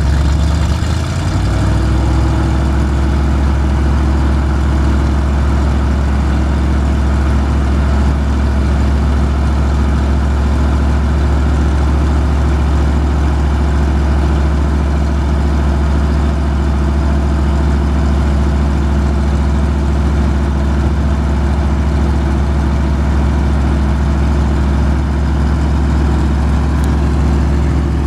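1987 Chevrolet C70 dump truck's gasoline engine running steadily, its speed stepping up about a second in and then holding, while it powers the hydraulic hoist that raises the steel dump bed.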